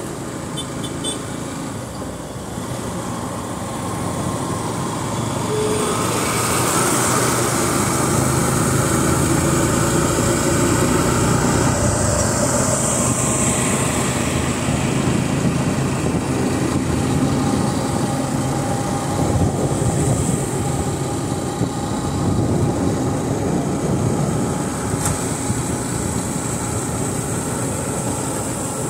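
Motorcycle engine running while riding, with wind and road noise; it all grows louder about six seconds in.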